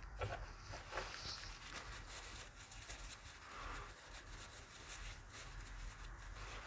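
Faint rustling of a paper tissue being handled over a glass petri dish, with a couple of soft clicks in the first second.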